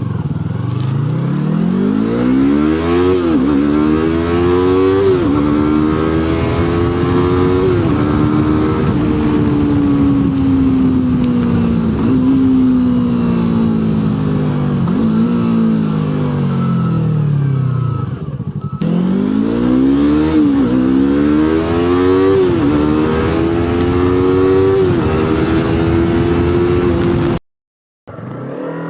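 Yamaha R3's 321 cc parallel-twin engine, with its exhaust silencer insert removed, accelerating through the gears. The pitch climbs and drops sharply at each upshift, then falls away for several seconds as the throttle closes. After a cut, a second run climbs through the gears again.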